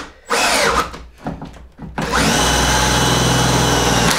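Power drill driving an Irwin Blue Groove Power auger bit into timber. It runs in two short bursts, then runs steadily and loudly from about halfway through as the bit bores toward the nails driven into the wood.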